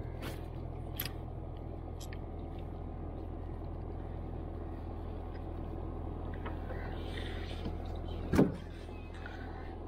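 Steady low drone of a boat engine running, with a few light clicks in the first two seconds and a single sharp knock about eight seconds in, the loudest sound.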